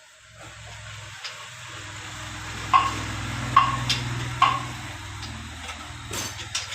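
A small engine running steadily with a low, even hum, with three sharp metallic clinks about a second apart in the middle.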